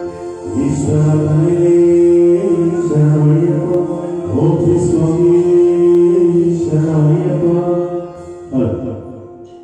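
Hindu devotional chanting sung over music, long held notes above a steady drone. It drops away sharply about eight seconds in.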